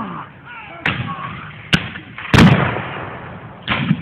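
Black-powder gunfire from reenactors' muskets firing blanks: four separate shots spread over a few seconds, the third the loudest, with voices heard between them.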